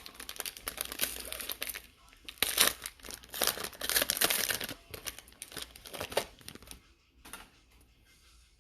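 A trading card pack's wrapper being torn open and crinkled, in dense crackles for about seven seconds, with one last short crinkle just after.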